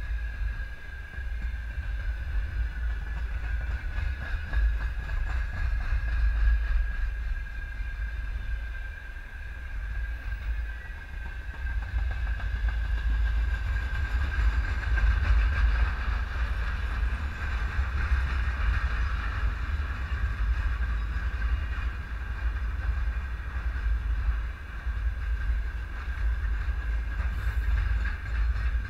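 A train running past close by on the rails: a heavy, steady rumble of wheels on track with faint clicking at the rail joints and a steady high-pitched whine throughout.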